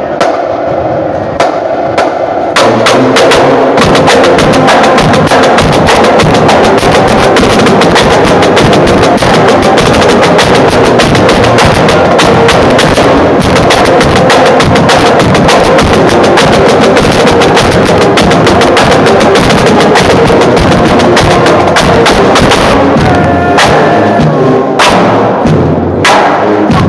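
High school marching band playing, brass and saxophones over a loud, busy drum beat. The full band comes in about two and a half seconds in and drops back briefly near the end.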